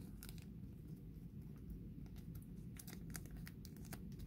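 Faint plastic clicks and rustles of a die-cut trading card shifting inside a rigid clear plastic top loader as it is handled, over a low steady hum.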